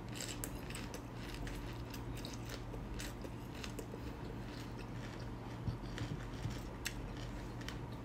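Close-mic chewing of raw red onion and a mouthful of ground beef with farinha: irregular crisp crunching clicks over a steady low hum.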